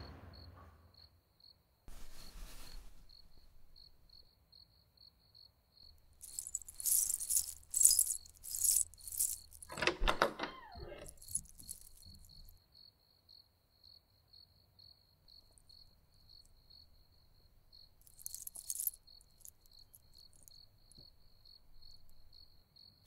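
Quiet, sparse suspense sound design: a faint steady ticking about twice a second, broken by clusters of metallic jingling about a third of the way in and again later, and a brief wavering sound just after the first jingling.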